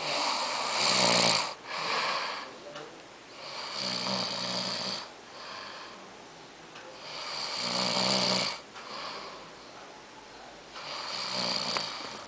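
A drunk man snoring: four long, loud snores about four seconds apart, each followed by a shorter, quieter breath.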